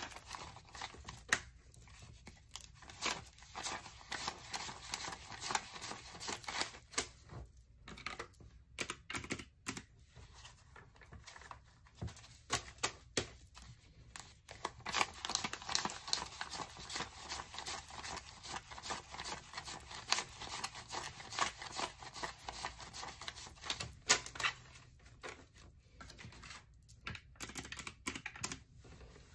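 US dollar bills being counted by hand, one note after another flicked off the stack with crisp paper rustles and snaps. Clacky key presses on a round-keyed desk calculator are mixed in.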